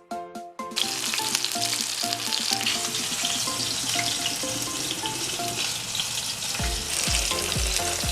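Chicken frying in hot grease: a steady sizzle with fine crackles, starting about a second in, under background music. A bass beat joins the music near the end.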